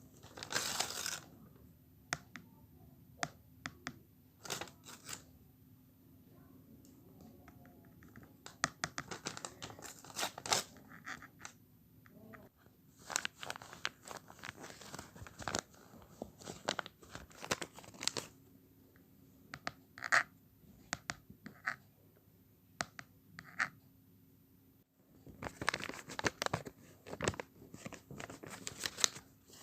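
Blind-bag packaging being torn open and crinkled by hand, in irregular bursts of crackling and rustling with short quiet gaps between them.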